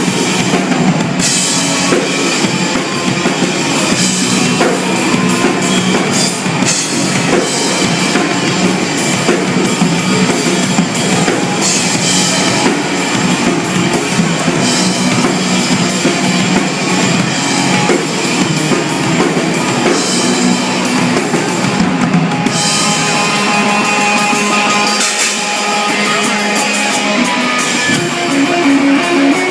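Live rock band playing an instrumental passage with no singing: a full drum kit and guitar, loud and steady throughout.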